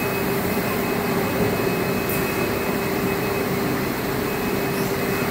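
Hat brim-cutting machine running, its electric motor giving a steady, unchanging hum as a felt hat brim is fed through and cut.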